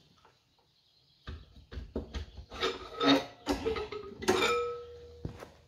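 Cylinder head of a Lister three-cylinder diesel engine being worked loose and pulled off: a run of metal clanks and knocks starting a little over a second in, the loudest near the middle, with a ringing metallic note after a hard knock near the end.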